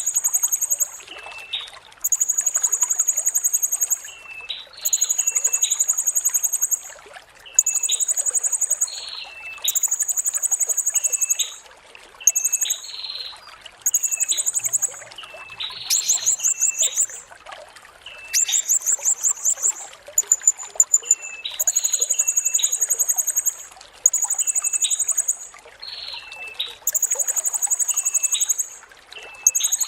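Blue-crowned hanging parrot (serindit) calling: a run of shrill, high buzzy trills, each lasting about a second and a half and repeated every two or three seconds, with short sharp chip notes between them.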